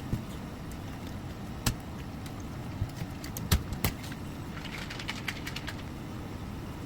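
A cat crunching dry L-Lysine treats up close: a few sharp single crunches, then a quick run of chomps around the five-second mark, over a steady low hum.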